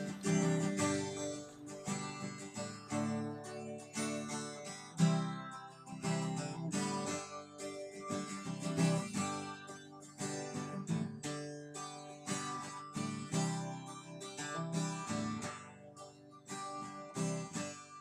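Acoustic guitar music, a steady run of plucked and strummed notes.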